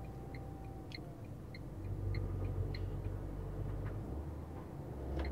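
In-cabin sound of a Tata Tigor CNG's three-cylinder engine running steadily at cruise, a low drone that drops lower about four seconds in. A light, regular ticking runs over it.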